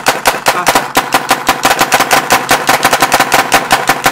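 Paintball marker firing compressed-air shots in a rapid, even stream, several a second, that stops right at the end.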